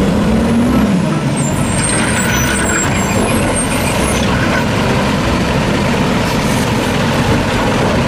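Garbage truck running: a loud, steady engine noise that cuts in abruptly. A low tone glides up and back down in the first second, and thin high squeaky tones come and go over the next few seconds.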